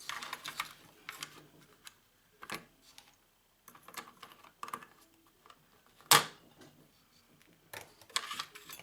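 Small metal parts from a dismantled oxygen generator being handled and set down: scattered clicks and knocks, with one loud knock about six seconds in.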